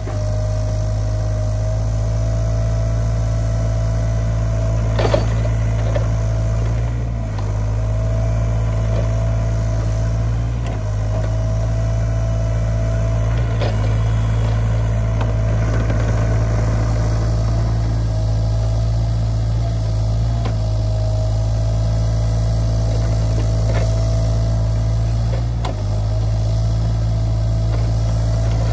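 SANY SY35U mini excavator's diesel engine running steadily at working throttle, with a steady whine over the low engine hum. A few sharp knocks come as the bucket scrapes and digs soil, the loudest about five seconds in, and the engine note dips briefly a few times.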